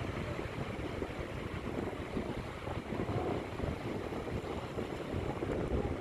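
Steady wind rumbling on the microphone over small waves washing across shallow water onto a sandy beach.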